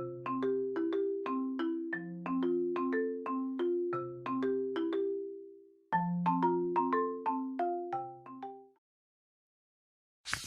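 Cheerful mallet-percussion music, marimba-like, playing a quick melody of short, fading notes over a lower bass line; it breaks off briefly about six seconds in, resumes, and stops near the nine-second mark. A short burst of noise comes right at the end.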